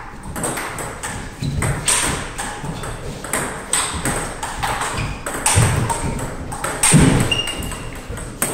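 Table tennis rally: the ball clicking off the paddles and the table in quick, even alternation, about two hits a second, with a few heavier thumps in the second half.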